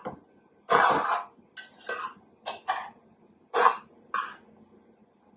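A spoon stirring and scraping through pasta in a metal pot: about six short scraping sounds at uneven intervals, the loudest about a second in.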